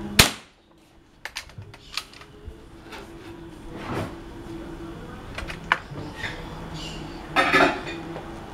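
Shark CO2 air rifle firing: one sharp crack just after the start as a pellet knocks a .22 cartridge case off the concrete slab. Light metallic clicks follow, then a short noisy burst near the end.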